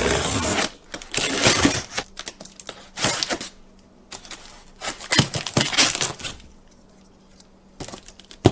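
Cardboard box and packaging being opened and handled: bursts of rustling and scraping with a run of small clicks and light knocks, ending in one sharp, louder click.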